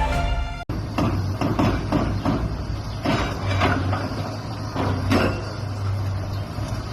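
Music cuts off under a second in. Then a demolition machine's diesel engine runs steadily while rubble knocks and clatters repeatedly as a structure is knocked down.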